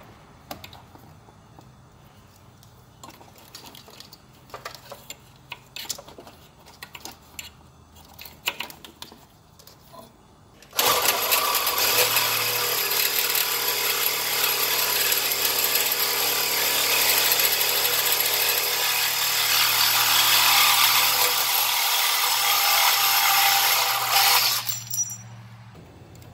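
Scattered clicks and knocks of parts being handled, then about eleven seconds in a power saw starts and runs for about fourteen seconds, cutting away a piece of the metal SAI pump bracket, before stopping near the end.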